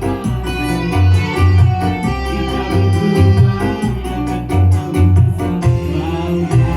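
Music led by an electronic keyboard playing in an organ voice over a steady bass line that changes note about every half second.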